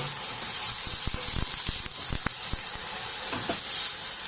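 Onion, garlic and ginger sautéing in hot oil in a pan: steady sizzling, with irregular knocks of a utensil stirring against the pan.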